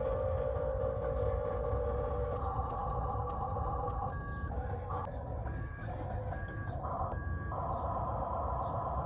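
Reversing beeper of a toy RC construction vehicle sounding over a steady electronic engine hum and low rumble, with about four short beeps just under a second apart starting about four seconds in.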